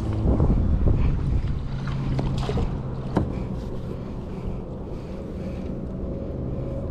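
Wind buffeting the microphone over water and kayak-hull noise, with a sharp click about three seconds in.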